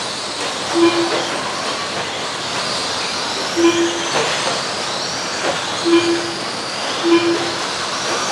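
Electric RC stadium trucks racing on a dirt track: a steady wash of whining motors and tyres on dirt, with quick downward pitch sweeps as trucks pass close. A short electronic beep sounds four times at uneven spacing, typical of a lap-counting system registering trucks crossing the timing loop.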